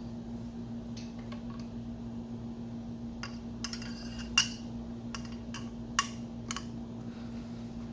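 Irregular metallic clinks and clicks of hand tools on engine timing bolts, the loudest about four and a half and six seconds in, over a steady hum.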